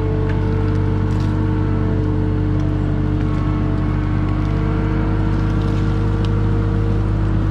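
Two-stroke personal watercraft engine running at a steady speed, its pitch holding nearly constant.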